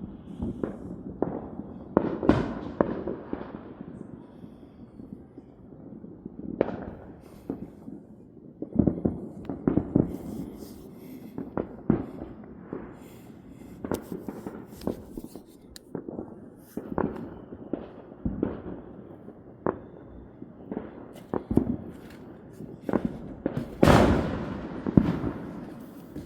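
Fireworks and firecrackers going off, a string of sharp bangs and pops at uneven intervals. The biggest bang comes near the end and echoes for a second or two.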